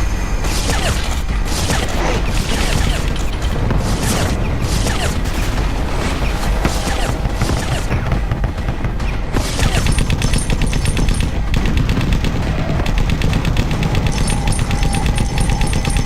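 Battle gunfire: a dense barrage of rifle and machine-gun fire with booms. From about nine seconds in, a fast, even stream of machine-gun fire takes over.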